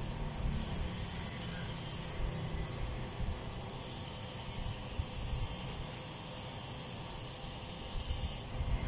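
Outdoor background noise: a low, uneven wind rumble on the microphone under a steady high hiss. The hiss grows louder about four seconds in and cuts off suddenly near the end.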